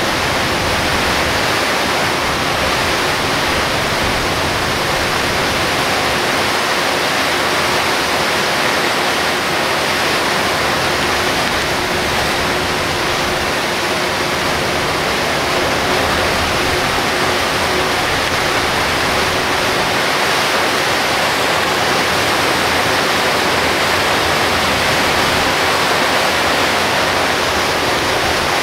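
Steady, even rushing of torrential rain and tyres on a flooded road, heard from the front of a moving Hino Selega HD coach, with a faint steady hum underneath.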